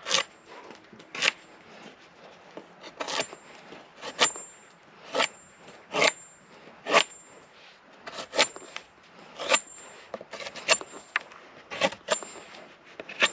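Condor Lobo machete, a thin 1075 carbon-steel blade, carving a point on a birch branch: a run of short, sharp slicing cuts, about one a second, each taking a chip off the wood, some with a faint high ring from the blade.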